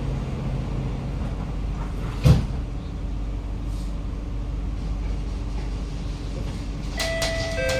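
Kawasaki-Sifang C151C train carriage interior: a steady low rumble, a single sharp thump about two seconds in, and near the end the traction motors' whine of several steady tones starting up as the train pulls away.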